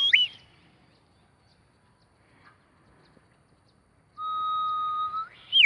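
Person whistling to call a dog: a warbling whistle that cuts off right at the start, then a few seconds of quiet, then a long steady whistled note that lifts slightly and breaks into fast up-and-down warbles near the end.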